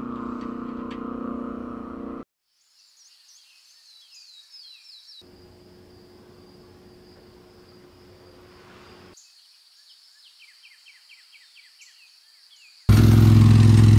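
Quiet woodland ambience: a steady high insect trill with birds chirping, including a quick run of descending chirps. A louder steady humming sound at the start cuts off after about two seconds, and a loud low droning sound comes in abruptly near the end.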